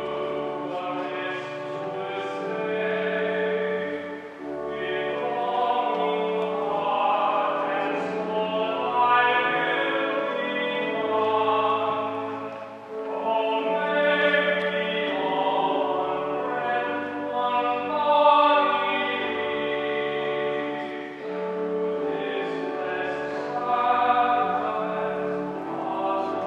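Sung church music during communion: voices singing a slow hymn over held low accompanying notes that change every second or two.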